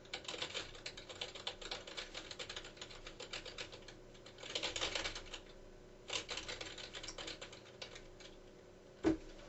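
Computer keyboard being typed on: a dense run of soft key clicks with short pauses, and one short louder sound about nine seconds in.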